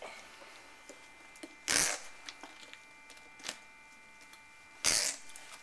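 Rubber head-harness straps of a breathing-apparatus face mask pulled tight through their buckles: two short rasps, about three seconds apart.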